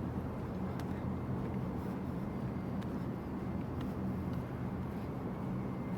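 Steady low rumble of outdoor background noise with a faint hum.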